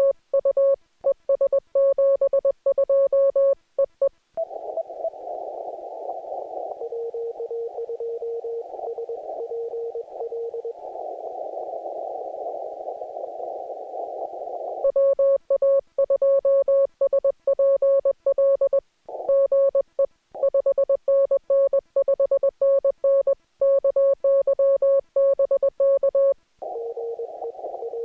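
Morse code (CW) on an amateur radio transceiver. The operator's own keyed sidetone, a steady tone beeping in dots and dashes, runs for the first few seconds and again from about 15 to 26 seconds in. Between those stretches is the receiver's narrow-filtered band hiss, in which a fainter, slightly lower-pitched Morse signal from the other station comes through.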